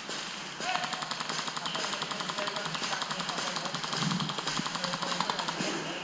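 Airsoft rifle firing on full auto: a rapid, even rattle of shots that starts about half a second in and runs almost without a break.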